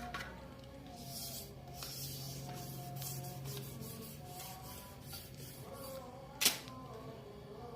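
Irregular rubbing or scrubbing strokes on an engine block being cleaned by hand, with one sharp click about six and a half seconds in.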